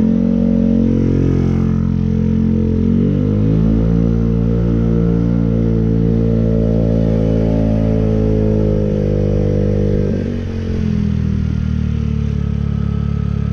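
Motorcycle engine running under way, its note rising as it accelerates over the first few seconds, then holding steady. About ten seconds in it drops briefly, as at a gear change or easing off the throttle, then runs on evenly.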